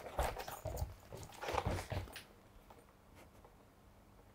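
Dog moving about on a wooden floor: a few soft taps and scuffs in the first two seconds, then near silence.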